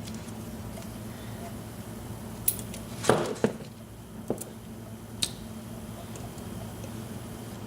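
Small metal lock pins and springs tipping out of a euro profile cylinder's pin chambers: a handful of light clicks and clinks on a hard surface, bunched together about three seconds in.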